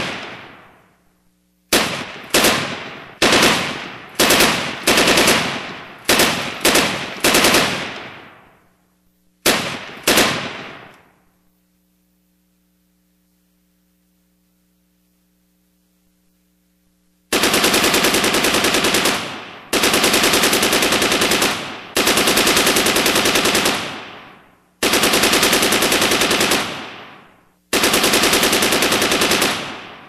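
Gunfire sound effects: about a dozen single shots, each trailing off over a second or so, then a pause of about six seconds, then five bursts of automatic machine-gun fire, each lasting about two seconds.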